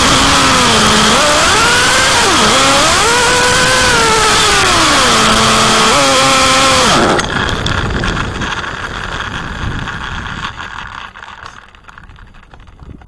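Kyosho MP9 nitro buggy's small glow-fuel engine, heard close up, revving up and down, then dying abruptly about seven seconds in as the fuel runs out. The car then coasts, its rolling rattle fading as it slows to a stop.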